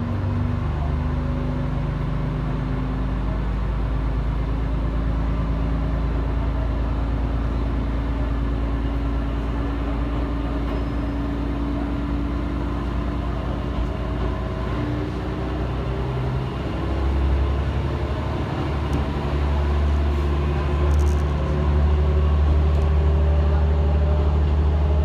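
Diesel railcar of the Kanto Railway Joso Line, heard from inside the cabin as it pulls away from the station and accelerates: a steady engine and transmission drone with whines that rise slowly in pitch over the rumble of the wheels. The low rumble grows louder about two-thirds of the way through.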